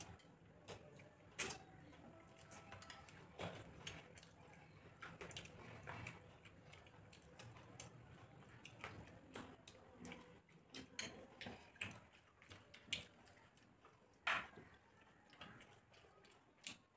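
Eating sounds: soft chewing and mouth smacks as rice and fish are eaten by hand, with fingers mixing rice on plates. There are irregular faint clicks throughout and two sharper clicks, one about a second and a half in and one near the end.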